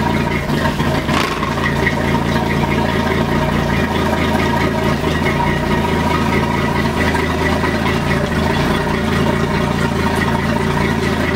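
Chevy V6 engine of a boat's Mercury sterndrive idling steadily, with no revving.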